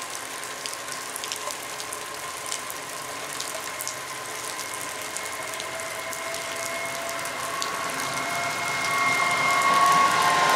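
Class 854 diesel multiple unit approaching with its coaches, a steady high whine and scattered clicks from the train growing louder as it nears.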